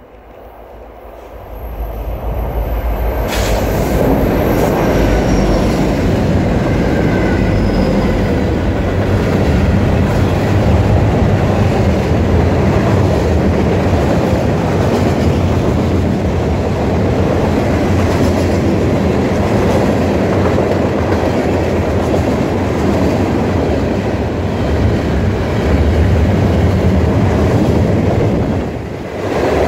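A CN freight train led by three diesel locomotives passing close by at speed: the sound swells over the first few seconds as the locomotives arrive, then holds as a steady rumble of freight cars running over the rails, dipping briefly near the end.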